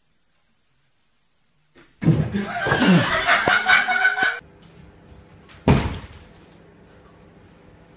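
A sudden clatter as a cat's jump fails and it drops from a chair back, with a person bursting into loud laughter for about two seconds. A single sharp thump follows about a second and a half later.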